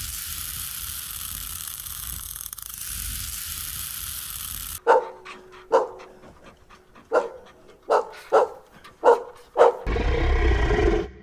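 Dog barking: about eight short, sharp barks in a loose series, after a few seconds of steady hiss. A louder rough noise follows near the end.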